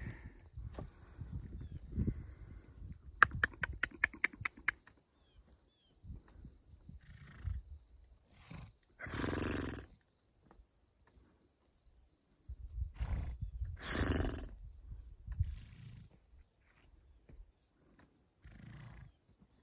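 Wild ponies snorting, two short noisy blows about nine and fourteen seconds in, over a steady pulsing insect trill. A quick run of sharp clicks sounds around three to five seconds in.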